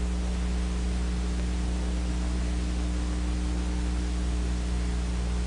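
Steady electrical hum with a low drone and a couple of higher hum tones over an even hiss, unchanging throughout: the background noise of an old film soundtrack.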